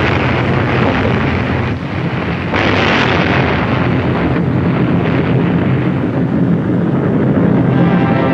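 Sustained roar and rumble of an atomic bomb explosion on an old film soundtrack, just after the bang, swelling again about two and a half seconds in.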